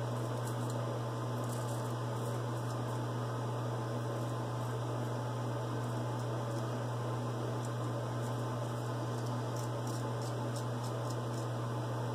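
Steady low electrical hum, with faint short scrapes of a double-edge safety razor cutting lathered stubble under the lip, mostly in the second half.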